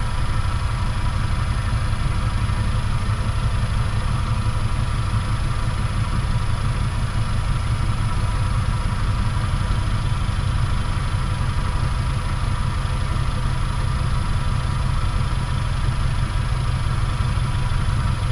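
Myford metal lathe running steadily under power, with an even motor and drive hum.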